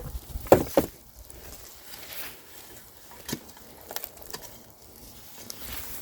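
Hand-digging potatoes out of garden soil: scattered rustles and knocks, with the loudest pair of knocks about half a second in.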